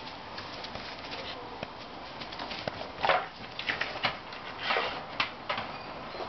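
A dog straining in a tug of war with a bungee cord tied to a fence post. A run of sharp noises begins about two and a half seconds in, the loudest about three seconds in, with smaller clicks and scuffles between them.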